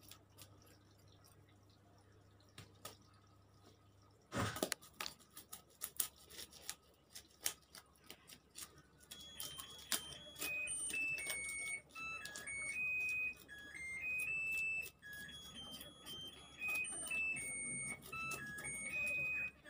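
A knife scraping the scales off small fish, a quick run of clicks and scrapes starting about four seconds in. From about halfway, a simple electronic melody of steady beeping notes plays over the scraping.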